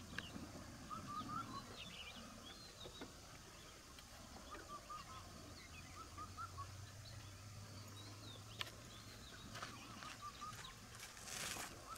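Faint animal calls: short high notes in quick runs of four or five, repeated several times. A low hum runs through the middle, and there is a brief rustle of noise near the end.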